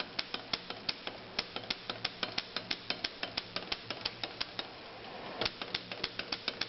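Corona 3 folding typewriter being typed on: a quick run of sharp key and typebar strikes, about four to five a second, with a short pause about five seconds in. The carriage stays put, its drawstring broken.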